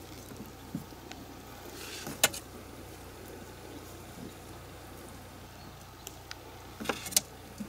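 Metal shashlik skewers clinking as meat is threaded onto them: one sharp clink about two seconds in and a couple of lighter clicks near the end, over a steady low hum.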